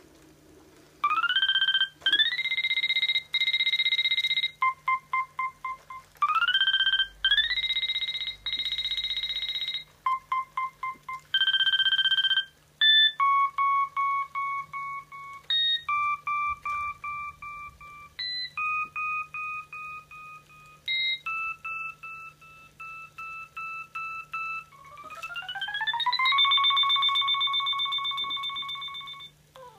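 Sony AIBO ERS-210 robot dog's speaker playing a string of electronic tones: rising chirps, quick runs of short beeps and held notes, ending near the end in a long rising glide into a held tone.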